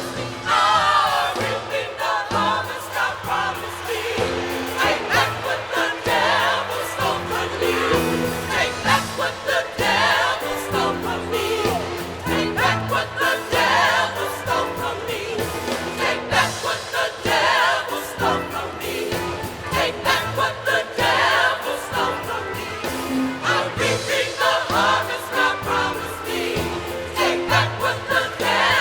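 Gospel choir singing with band accompaniment: many voices in full harmony over bass and drums with a steady beat.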